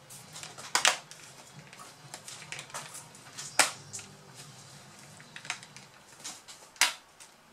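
Plastic laptop screen bezel being pressed onto the display lid, its clips snapping into place in a series of sharp clicks and crackles, three loudest about a second in, midway and near the end.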